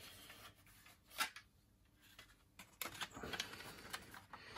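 Unglued plastic parts of an Airfix 1:72 B-17G kit clicking and rustling as they are handled and pressed together in a dry fit. One sharp click about a second in, then a run of light clicks and handling noise over the last couple of seconds.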